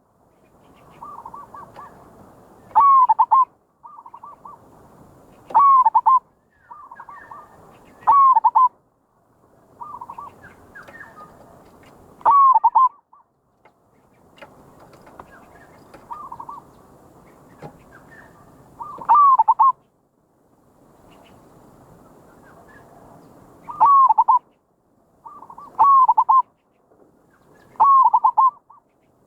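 Zebra dove (merbok) cooing: short, rolling, trilled coos repeated every two to four seconds, several opened by a softer note. This is the kind of call prized in a decoy (pikat) bird.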